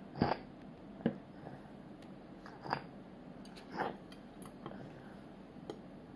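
A toddler chewing food, with a few short, sharp clicks and scrapes of a metal fork against the plate, the loudest right at the start.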